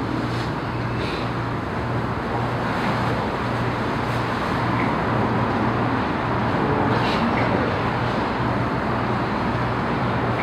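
Steady hushed room noise with a low hum underneath and a few faint, soft clicks.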